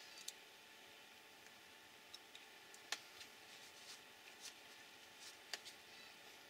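Faint clicks of small plastic and metal RC car shock absorber parts being handled, the sharpest about three seconds in and another near the end. Soft tissue rustle as the shock is wiped.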